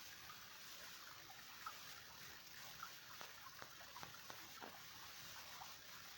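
Faint, steady trickle of a small stream, with a scattered few short ticks.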